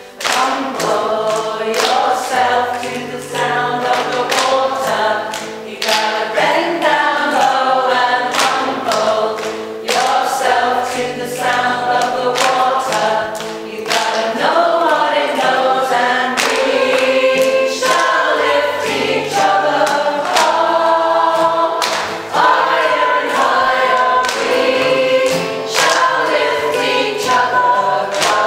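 Mixed men's and women's choir singing together, accompanied by acoustic guitar, with sharp rhythmic beats, likely hand claps, running through the song.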